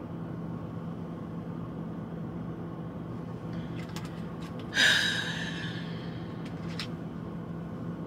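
Steady low hum inside a truck cab, a few small clicks of a small bottle being handled, then about five seconds in a sharp, breathy gasp that trails off over a second.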